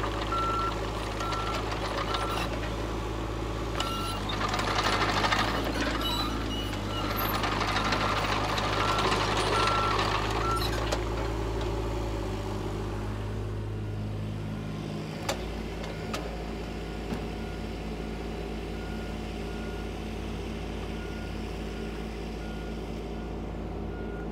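Volvo EC35C mini excavator's diesel engine running as the machine tracks along, with its travel alarm beeping steadily. The beeping stops about eleven seconds in and the engine drops to a lower, quieter run, and fainter beeping returns near the end.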